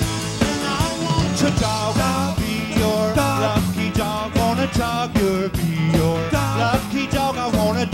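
Rock-and-roll band playing live, guitar over bass and drums, heard in a soundboard mix.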